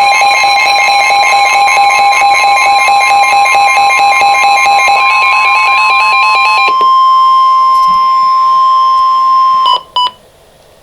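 Emergency Alert System alert tones: a loud, steady electronic alarm of several held tones. About two-thirds of the way through it thins to a single steady tone, which cuts off with two short blips near the end.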